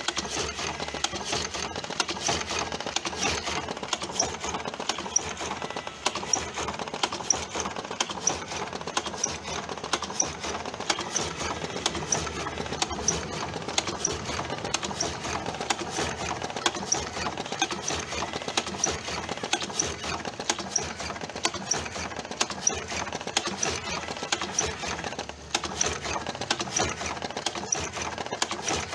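TobaTech AG-01 electric cigarette tube filling machine running steadily, a dense mechanical clatter with light regular high ticks, dipping briefly about six seconds in and again near the end.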